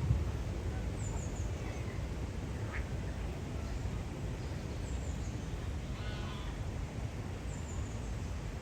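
Park birds calling over a steady low rumble: a duck quacks in a short run about six seconds in, and small birds give thin, high, falling chirps about a second in, near five seconds and near the end.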